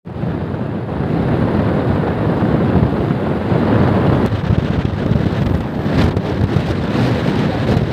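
Wind buffeting the microphone of a moving motorcycle, a loud continuous rumble, with the bike's running and road noise underneath.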